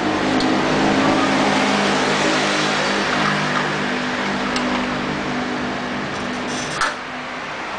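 A steady machine hum: a low drone with a noisy hiss over it, slowly easing off, then dropping with a click near the end.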